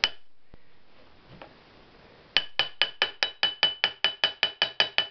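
A hammer tapping the end cover of an electric motor onto its shaft bearing. There is one knock at the start, then from about two and a half seconds in a quick, even run of taps, about five a second, each with a short metallic ring.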